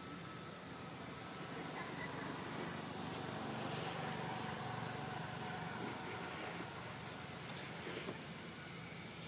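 Faint, steady outdoor background noise that swells a little in the middle and eases off again, with a few faint ticks.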